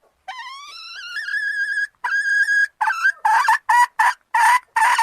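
A hen cackling: a long call rising in pitch, a held note, then a run of short, loud, repeated squawks at about three a second.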